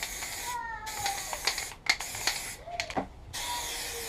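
Aerosol spray-paint can hissing in about four short bursts with brief pauses between them, and a few sharp clicks in a gap near the middle.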